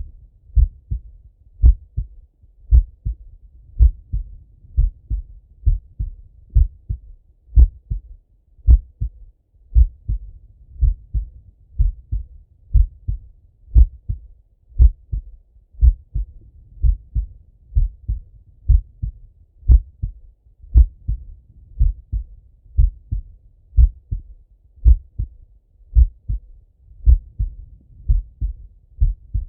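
A man's slow heartbeat heard through a Littmann stethoscope: steady paired lub-dub thumps at about one beat a second.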